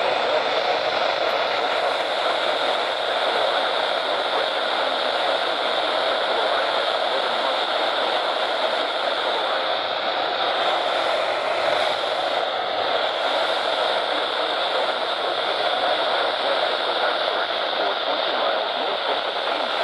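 Steady hiss of weather-radio static: the receiver has lost the National Weather Service broadcast signal.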